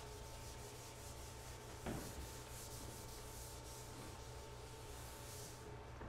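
Whiteboard eraser rubbing dry-erase marker off a whiteboard in faint, repeated wiping strokes, with one light tap about two seconds in.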